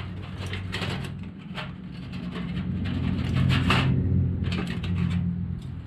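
Oil filter pliers gripping and turning a motorcycle oil filter to break it loose, with short scrapes and clicks of metal on the filter can, over a steady low hum that swells in the middle.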